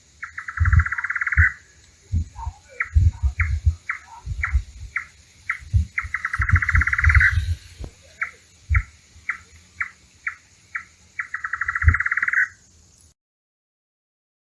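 A bird calling, three times over: a rapid trill lasting about a second and a half, each followed by a string of short, clipped notes at about three a second. Low thumps sound beneath it.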